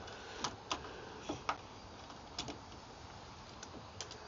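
A handful of light, sharp clicks and taps, about six spread out irregularly, from hardware and parts of a boat's tilt steering helm being handled as it is taken apart.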